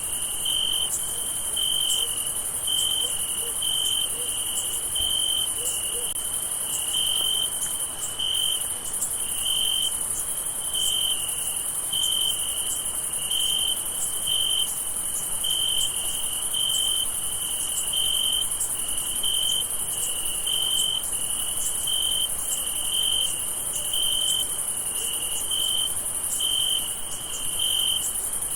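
Crickets chirping: a clear chirp near 3 kHz repeats steadily, about one to two times a second, over a continuous, higher-pitched insect trill.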